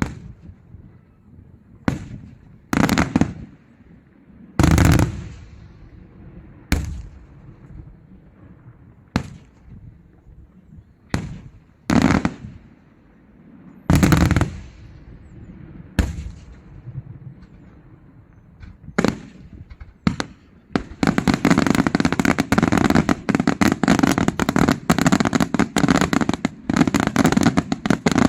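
Daytime fireworks: single loud bangs every second or two, some echoing briefly. About 21 seconds in, a dense, continuous rapid crackle of firecracker bangs takes over.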